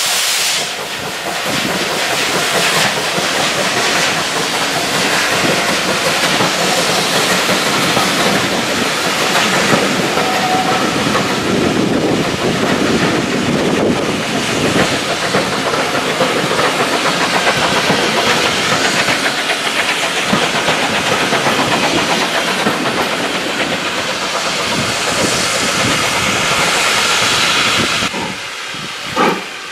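Passenger coaches of a steam train rolling past, a steady rumble of wheels on rail with clatter over the rail joints. Near the end, sharp chuffs from GWR Manor-class 4-6-0 no. 7812's exhaust start, about one every half second or so.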